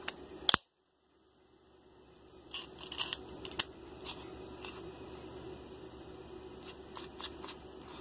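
Light plastic-and-metal handling clicks from a red MegaPro ratcheting T-handle screwdriver being worked by hand at the handle and bit end: two sharp clicks at the start, a brief total dropout of the sound, then scattered small clicks, a handful about three seconds in and a few more near the end, over a faint steady hum.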